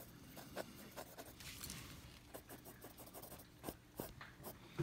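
Pencil scratching on paper in short, irregular strokes as shadows are shaded into a drawing; faint.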